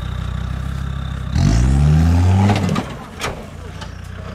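Land Rover Discovery TD5's five-cylinder turbodiesel running under load, then revved hard about a second and a half in, the pitch rising and holding for about a second and a half before it backs off. A few knocks as the revs drop.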